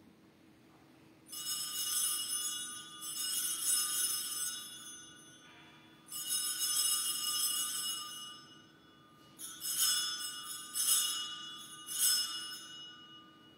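Altar bells, a cluster of small handbells, shaken in about six bursts of bright ringing, each fading before the next. They mark the elevation of the chalice at the consecration.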